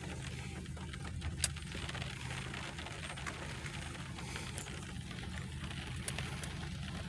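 Scattered raindrops tapping on a car's roof and windshield, heard from inside the car, a few sharp ticks standing out over a steady low hum.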